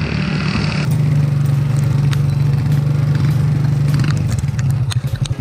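Vehicle engine running steadily while driving over a dirt track. From about four seconds in, clicks and knocks of rattling bumps join the hum.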